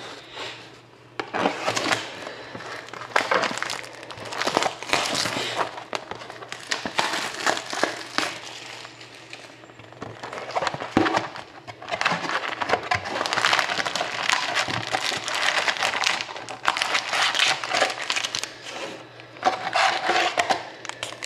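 Plastic wrapping on a box of trading cards crinkling and crackling in irregular bursts as it is torn and pulled off by hand.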